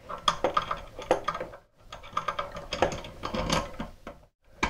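Flathead screwdriver turning a toilet-seat mounting bolt down into its wing nut: a run of small irregular clicks and scrapes as the bolt is tightened, with short pauses between turns.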